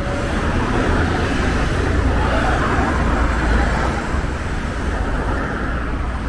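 Road traffic on a busy city street: vans and cars passing, a steady low rumble of engines and tyres.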